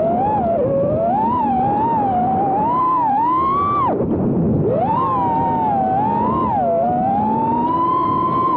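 Five-inch FPV racing quadcopter's brushless T-motor motors and propellers whining, the pitch constantly rising and falling with the throttle. Just before four seconds in the pitch drops away sharply and then climbs back as the drone rolls over.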